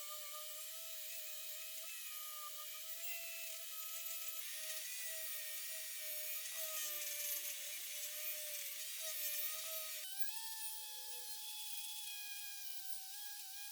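Small electric power tool running steadily with a high whine over a grinding hiss, working on metal or wood; the whine jumps higher about two-thirds of the way through.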